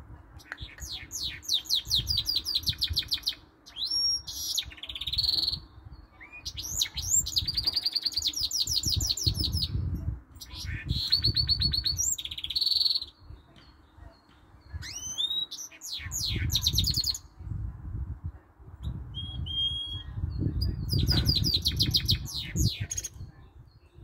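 Goldfinch mule (goldfinch × canary hybrid) singing in about seven bursts of song separated by short pauses, each made of high, fast trills and rolls with whistled notes. Its song mixes goldfinch phrases with some canary notes.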